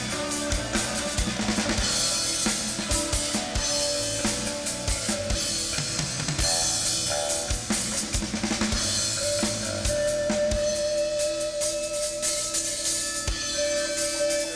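Live rock band playing an instrumental passage: a full drum kit keeps a steady beat with bass drum, snare and cymbals, under electric guitars and keyboard. Long held notes come in about ten seconds in.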